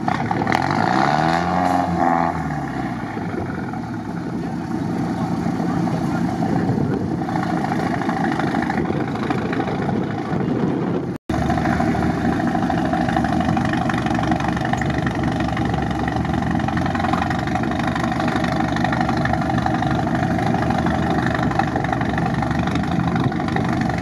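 Off-road vehicle engine running. Its pitch falls and rises in the first couple of seconds, then it runs steadily, with a brief sudden break about halfway through.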